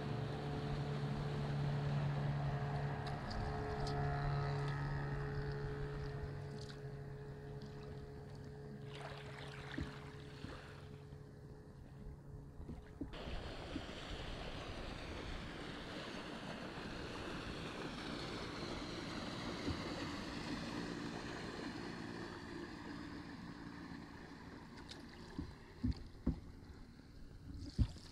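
A motor boat's engine drones steadily, then cuts off about halfway through, leaving a soft hiss of water and wind.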